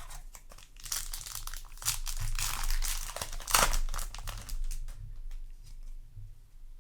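Foil trading-card booster pack wrapper crinkling and being torn open by hand, loudest a little past the middle.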